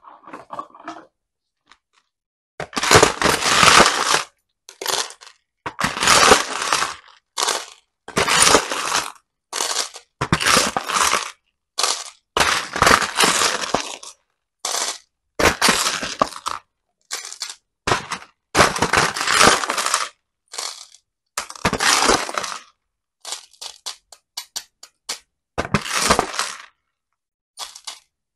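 Small plastic beads scooped with a metal scoop and poured, rattling and clinking against hard plastic containers in repeated bursts of one to two seconds each, about a dozen times.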